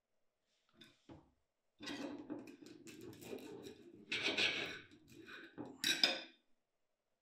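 Fork clinking and scraping on a dinner plate while a meal is eaten, with a couple of light knocks about a second in, then steady clatter from about two seconds in, loudest near the middle and near the end.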